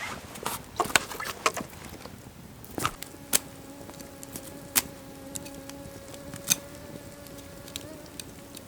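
A flying insect buzzing in a steady hum for about five seconds, starting about three seconds in. Before it come several sharp clicks and knocks.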